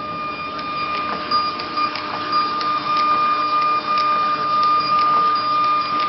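TSC TTP-384M thermal transfer label printer running, a steady high motor whine over mechanical hiss with scattered sharp clicks.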